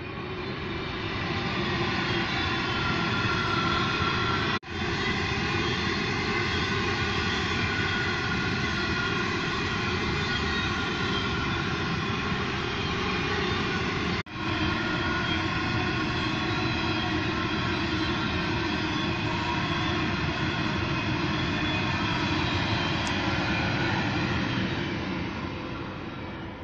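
Coal train of hopper wagons behind an electric locomotive rolling past: a steady rumble of wheels on rail with a whine of several steady tones over it. It swells in at the start, cuts out abruptly twice (about four and a half seconds in and again just past halfway), and fades near the end.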